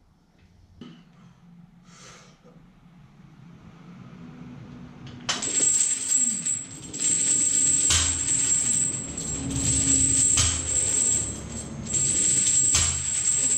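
Loud metallic jingling and clinking that starts suddenly about five seconds in, with several sharper clanks through it: steel lifting chains hung on a loaded barbell, rattling as the bar is worked.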